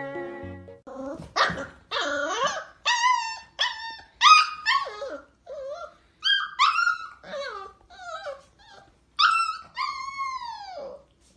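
Young golden retriever puppy howling and yipping: a quick string of short, high-pitched calls, most sliding down in pitch, ending with two longer howls that fall away.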